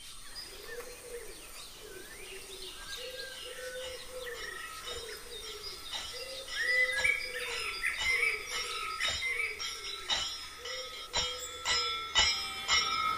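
Birds calling and chirping, with a low arched call repeating about once a second. From about halfway, sharp clicks come in more and more often and the sound grows louder.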